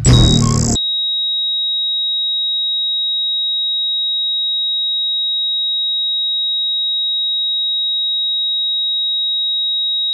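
A steady, high-pitched electronic sine tone, held without change. A loud burst of electronic music cuts off abruptly about a second in.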